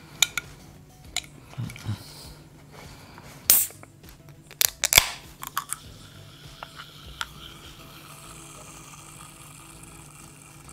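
Sharp clicks and snaps of fingers working the ring-pull of a soft-drink can, loudest about three and a half and five seconds in, followed by a faint steady hiss.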